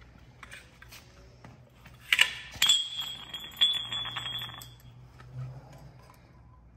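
Metal-on-metal clinks and clanks from the threaded adjustable spring-perch collars and tools on a shock absorber body being worked apart. A sharp clank about two seconds in leaves a metallic ring hanging for about two seconds, with lighter clinks after it.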